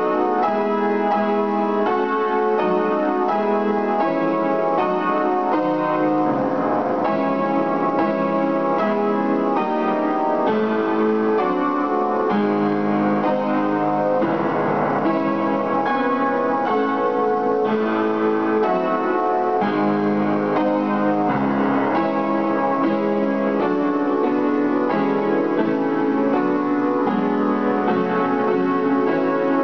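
Upright piano played solo: a fast, unbroken stream of notes from a classical piano piece.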